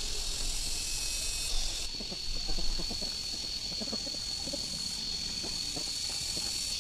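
Insects droning steadily as a high hiss with one constant high tone, with faint scattered knocks and rustles as gutted catfish are hung on a bamboo pole.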